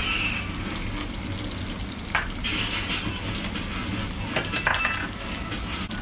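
Dumplings frying in a pot of hot oil: a steady sizzle with scattered crackles and a few sharper pops.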